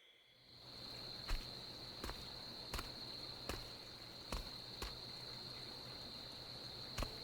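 Forest ambience of crickets: a steady, high-pitched insect chirring that fades in just after the start, with a few light ticks scattered through it about once a second.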